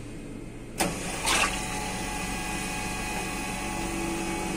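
Gelato machine (combined pasteurizer and batch freezer) clicking on about a second in, then running steadily with a hum. This is its motor and cooling starting the chilling and churning stage.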